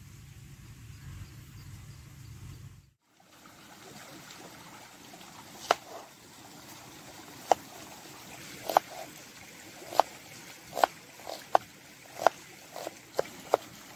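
Large knife cutting an onion on a wooden chopping board: sharp knocks of the blade hitting the board, about one a second, coming faster near the end, over the steady rush of a stream. The first few seconds hold only a low rumble before the sound cuts briefly.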